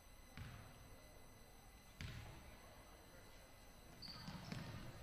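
Faint, hollow thumps of a basketball bouncing on a hardwood gym floor, twice. Near the end comes a short high squeak of sneakers as the players start to move.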